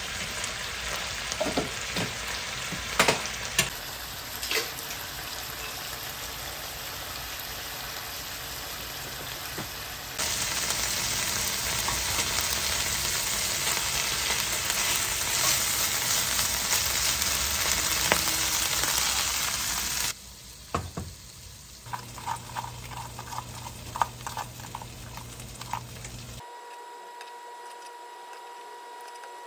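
Food frying in a pan: a steady sizzle with scattered clicks and scrapes of stirring, broken by abrupt cuts, loudest in the middle stretch. Near the end it gives way to a quieter steady hum.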